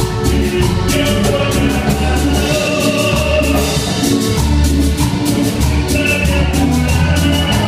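Live Andean cumbia band playing: a steady, even drum beat over a pulsing bass line, with held melody notes above, a charango strumming among the instruments.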